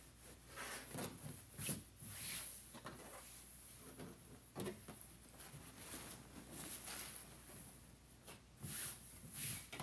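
Ankara cotton print fabric being folded and smoothed flat by hand on a cutting mat: soft, irregular rustling and rubbing, with a few light taps.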